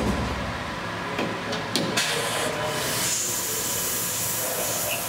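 A few sharp metallic knocks in the first two seconds as a tool holder is fitted by hand into a CNC mill's spindle. From about three seconds in, the steady hiss of a fog-buster coolant mist spraying at the cutting tool takes over.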